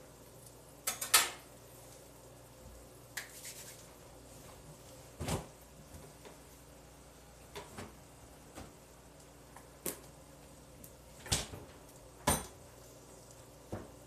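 Kitchen clatter of pots, dishes and utensils being handled and set down on the stove and counter: a scattered series of sharp knocks and clinks, the loudest about a second in, over a low steady hum.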